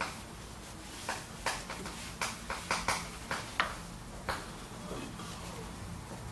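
Chalk writing on a chalkboard: an irregular run of sharp taps and short scrapes as strokes are made, which stops about four and a half seconds in.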